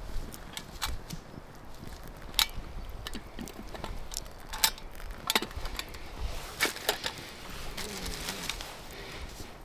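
A series of sharp, irregular clicks and snaps, the loudest about two and a half and four and a half seconds in, over a steady low rumble.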